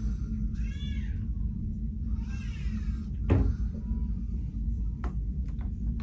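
A cat meowing twice, short calls that rise and fall in pitch, over a steady low hum of a passenger ship's engines. A single knock sounds a little past halfway.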